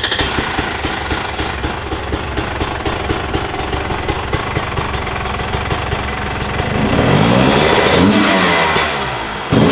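Husqvarna TE 300 fuel-injected two-stroke single-cylinder enduro engine, just started, idling with a rapid even beat. From about seven seconds in the throttle is blipped and the revs rise and fall a few times, with one more short rev near the end.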